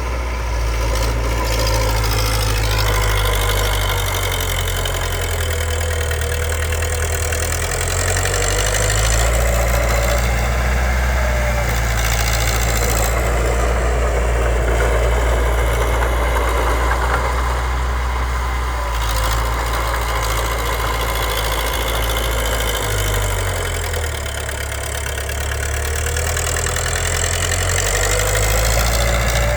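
Diesel engine of a Komatsu D20P bulldozer running steadily while it works, its pitch wavering up and down a little, with a brief drop in level about three quarters of the way through.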